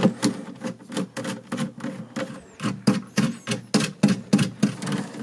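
A hand nut driver turns M3 nuts onto M3 machine screws through a thin flange, giving quick, even clicks at about four a second.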